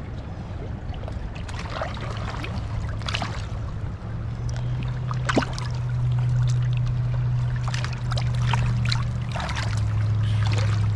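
Flooded river water rushing and splashing, with a steady low hum that grows louder about four seconds in.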